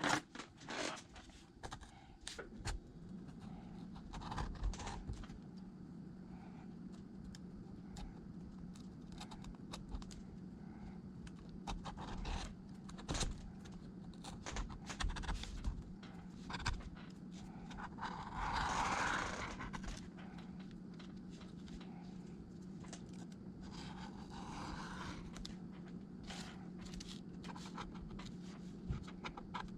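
A small tool scraping and clicking against the iPad's frame as the frame is cleaned, in many short irregular strokes, with one longer, louder scrape about eighteen seconds in. A steady low hum comes in a couple of seconds in and stays underneath.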